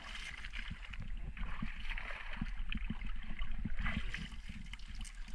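Seawater splashing and sloshing in uneven bursts as a fishing net heavy with fish is pulled by hand out of the water and over the side of a wooden outrigger boat.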